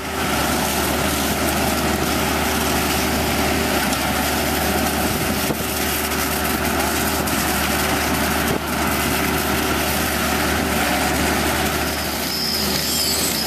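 Diesel engine of the concrete pumping equipment running steadily under load, a constant mechanical drone with a steady low hum.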